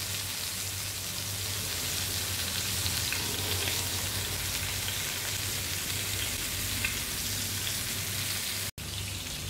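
A whole masala-coated, stuffed fish frying in hot coconut oil in a non-stick pan: a steady, even sizzle as it sears on high heat. A low hum runs underneath, and the sound cuts out for an instant near the end.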